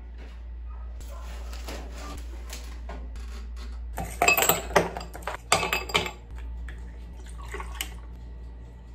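Ice cubes popped out of an ice tray and clattering into a drinking glass, a quick run of sharp clinks lasting about two seconds, midway through. Near the end, milk is briefly poured over the ice.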